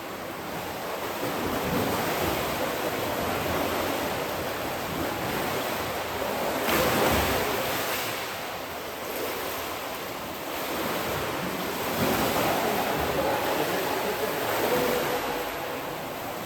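Swimming pool water splashing and sloshing, swelling louder and easing off in surges.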